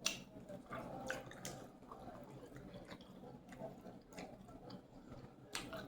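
Close-up wet eating sounds of seafood in garlic butter sauce being chewed: soft smacks and scattered wet clicks, a few sharper ones around a second in and near the end.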